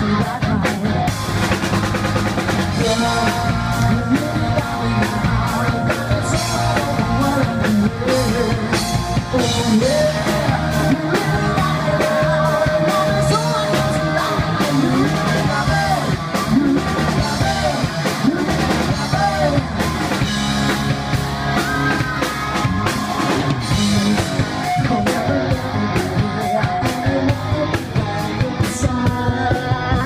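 Rock band playing live on stage: a drum kit keeping a steady beat under guitars, with a singer's voice over them.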